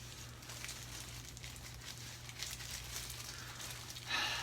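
Faint rustling and crinkling as hair dye is handled and worked into hair, with a louder rustle near the end, over a low steady hum.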